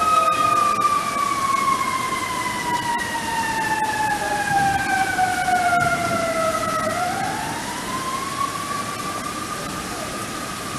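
Outdoor tornado warning siren wailing: its pitch slides slowly down for about seven seconds, then climbs back up and holds steady.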